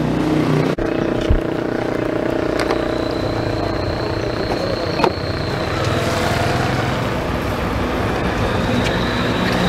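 Steady drone of an engine running nearby, with a few sharp clicks and knocks as the plastic tail light housing and its bulb sockets are handled.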